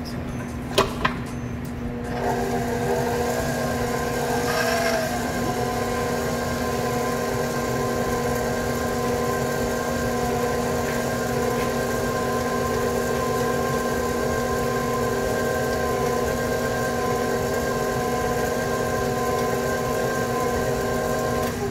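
Stand mixer with a flat beater starting up about two seconds in after a couple of sharp knocks, then running steadily with an even motor whine while it beats thick choux paste.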